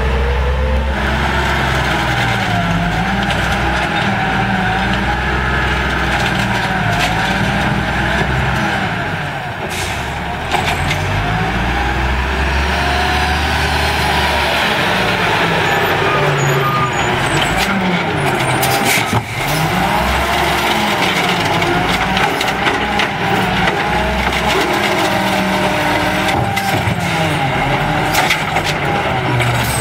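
Automated side-loader garbage truck's diesel engine running with a steady low rumble and a wavering whine, as the truck pulls up and its hydraulic arm lifts and tips a wheeled cart. A few sharp knocks come through, one about ten seconds in and another about nineteen seconds in.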